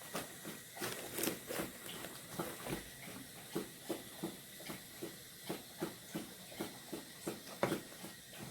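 Homemade slime being kneaded and squished by hand, giving short sticky squelches at about two to three a second.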